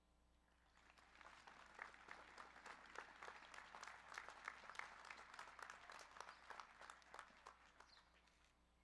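Audience applauding, faint: many hands clapping that build up about a second in and die away near the end.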